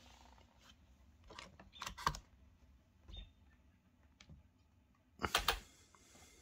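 Light handling clicks and knocks, a few around one to two seconds in and a quick cluster of sharper ones about five seconds in.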